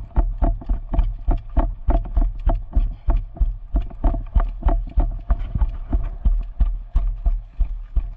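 Running footsteps close to the microphone, an even beat of about three to four strides a second, each a heavy thud with gear rattling.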